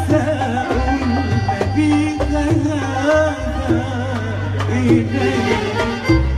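A woman singing an Arabic song into a handheld microphone over live accompaniment: a steady low bass line and hand-drum strokes.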